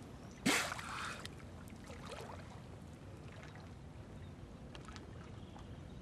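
A surfacing bottlenose dolphin blowing: one sharp, loud puff of breath from the blowhole about half a second in, with a quieter sound just after.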